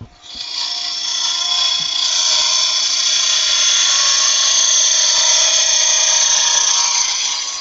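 A thin cutting tool pressed against a cocobolo duck call blank spinning on a wood lathe, giving a loud, steady, high-pitched screech with several whistling tones. It starts just after the beginning and stops near the end.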